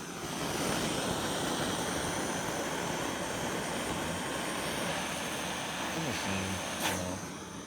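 Handheld gas torch burning with a steady hiss, its flame heating a stuck screw to soften the Loctite threadlocker holding it; it tapers off near the end.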